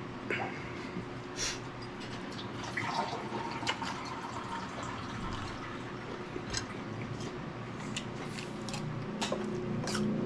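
Wet eating sounds: chewing and lip-smacking of green vegetables, heard as scattered short wet clicks.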